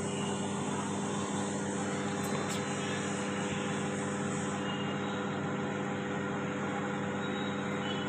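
Samsung Smart Oven microwave running on a timed cycle, a steady hum with several constant tones. It runs without heating the food, a fault the technician traces to a bad capacitor.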